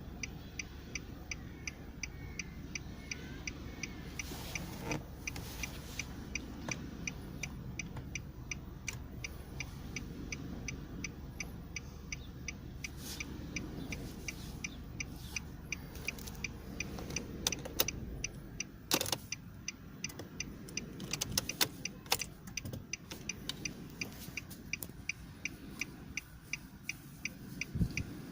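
A device ticking steadily about twice a second over a low hum; the hum stops about two-thirds of the way through, and a few louder clicks and knocks fall around the middle and near the end. This regular ticking is plausibly the sound fault the title complains of.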